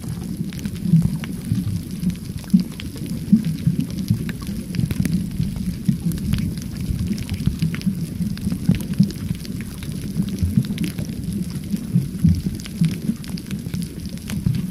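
Underwater sound picked up by a camera in its waterproof housing: a dense, churning low rumble of moving water, with scattered faint crackling clicks.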